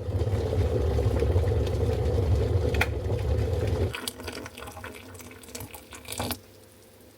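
A loud, steady low rumble, engine-like, that cuts off abruptly about four seconds in. It gives way to quieter rustling and a few clicks, which stop sharply about six seconds in.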